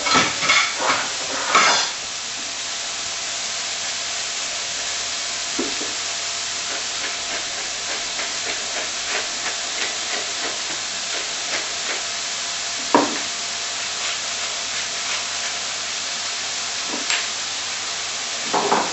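Pork chops sizzling steadily in a hot stainless steel frying pan as they are seared to seal both sides. A few short knocks, the loudest about two-thirds of the way in, as tongs touch the pan while the chops are turned.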